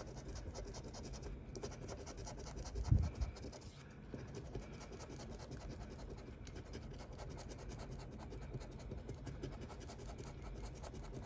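Scratch-off lottery ticket being scratched, the coating scraped away in quick, continuous strokes. A dull thump about three seconds in.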